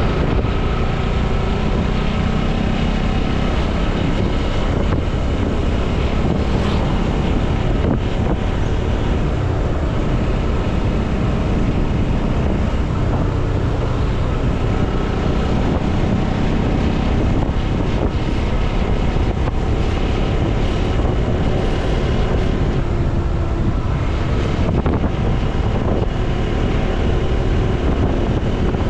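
Motorcycle engine running steadily while riding at speed, mixed with loud wind noise on the microphone.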